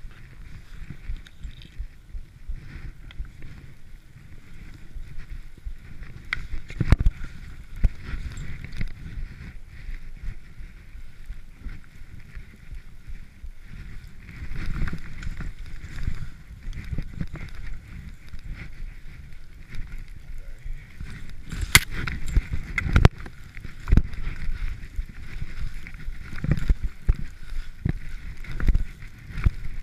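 Skis running through deep fresh powder, recorded on a GoPro: a steady low rumble and hiss of snow, broken by scattered sharp knocks and bumps that are loudest about two thirds of the way through.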